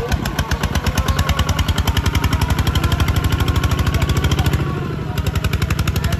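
Single-cylinder diesel engine of a two-wheel walking tractor chugging under load as it pulls a disc plough through wet soil, a fast, even stream of exhaust beats. The beat softens briefly about five seconds in, then picks up again.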